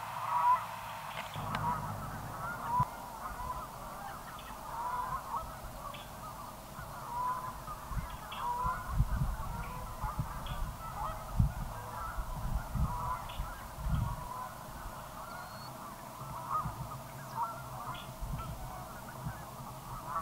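A large flock of birds calling without pause, many short overlapping calls, with low rumbles now and then.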